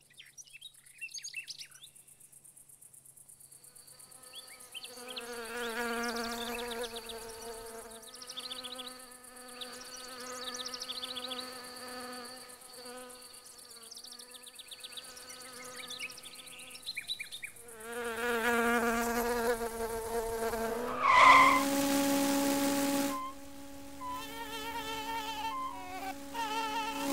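Buzzing of flies' wings in flight: several wavering buzzes that overlap and drift in pitch, with short high chirps above them through the first half. About three quarters of the way through, one buzz swoops up loudly past the listener, then a steadier buzz holds.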